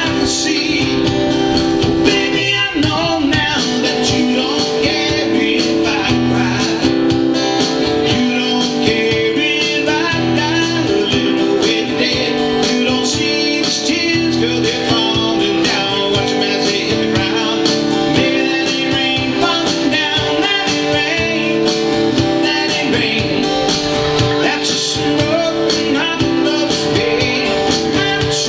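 A man singing while strumming an acoustic guitar in a live performance, his voice on a microphone.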